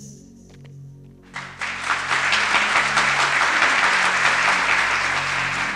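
Audience applauding over soft, low background music. The applause starts about a second in, swells quickly, and holds steady before beginning to ease off near the end.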